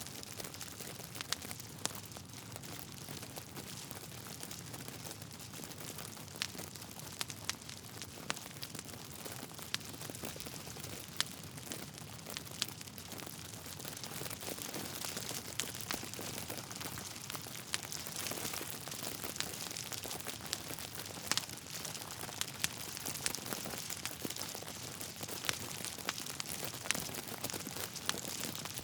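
Wood fire burning in a fireplace: a steady soft hiss with irregular sharp crackles and pops from the logs, a little busier and louder in the second half.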